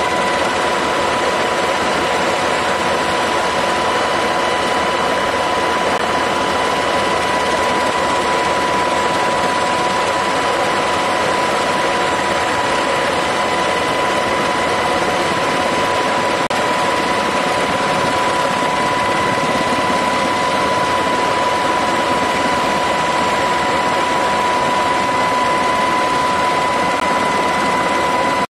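MH-60 Sea Hawk helicopter running at a hover: a loud, steady rushing drone with a constant high whine over it.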